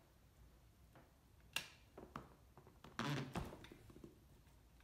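Faint handling noises of an electric staple gun being set against the edge of a vinyl-covered seat: a sharp click about a second and a half in, a lighter click after it, and a short scuffing knock about three seconds in.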